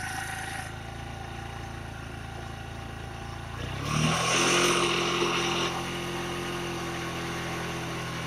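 Bajaj Boxer's single-cylinder four-stroke engine running steadily, then revved up a little under four seconds in and held at a higher speed. The throttle is opened to test whether the charging system raises the battery voltage.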